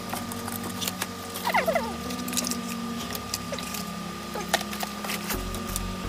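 Plastic packaging being handled and unwrapped: crinkling, scattered sharp clicks and a few short squeaks of plastic rubbing, over a steady high hum.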